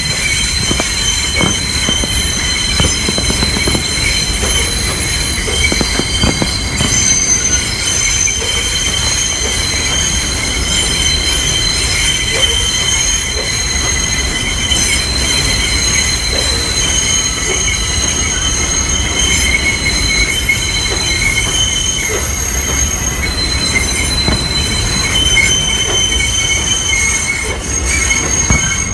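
Subway train's steel wheels squealing against the rails, a loud, unbroken high squeal of several tones held at once over a low running rumble.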